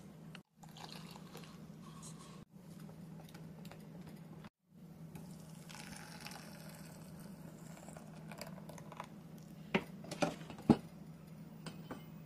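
Crepe batter being whisked in a stainless steel bowl, then poured through a fine mesh sieve, a soft liquid pour. Three sharp knocks come close together near the end, the last the loudest.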